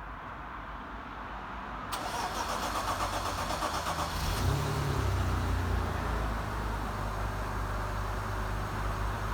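BMW M54B22 2.2-litre inline-six being cold-started: the starter cranks for about two and a half seconds, then the engine catches, flares up and settles into a steady fast idle.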